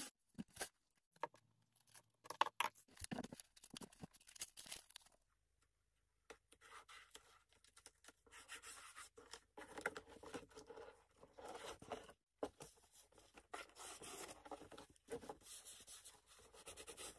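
Masking tape and paper pages being handled as tape is smoothed along a book's spine: a few short crackles in the first seconds, then faint, irregular rustling and rubbing.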